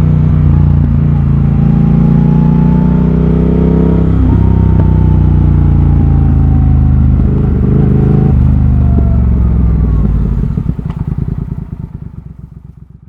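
Triumph Thruxton RS 1200 cc parallel-twin engine heard onboard through British Customs GP slip-on exhausts with an X-pipe. It pulls with pitch rising, with a gear change about four seconds in and another around eight. About ten seconds in the throttle closes, leaving a slow, lumpy pulse that fades away.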